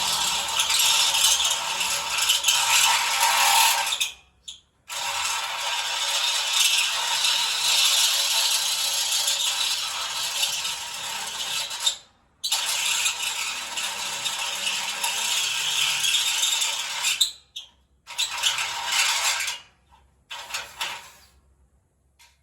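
Welding arc crackling in long, steady runs, stopping abruptly a few times and starting again.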